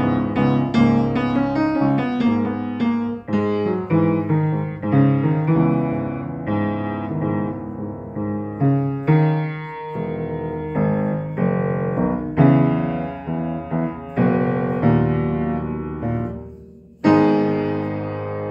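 Upright piano played by hand: a steady stream of struck notes and chords, each ringing and fading. About sixteen seconds in the sound dies away almost to nothing, then a loud chord is struck and left to ring.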